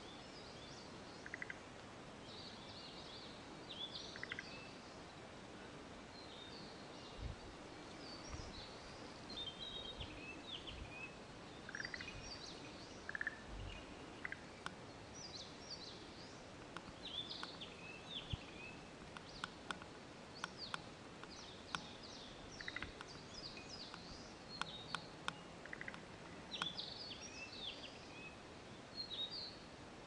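Woodland birds singing, with many short high chirps and warbled phrases throughout, and frogs calling in short pulsed croaks every few seconds. A few low thumps sound around the middle.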